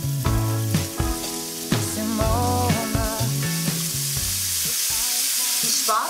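Diced pork belly bacon sizzling as it fries in a pan, with background music over the first few seconds.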